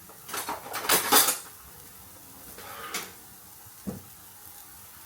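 A cooking utensil clattering and scraping against a frying pan while turning frying tikkis: a loud burst of clatter about a second in, a short scrape near three seconds, then a single knock about four seconds in.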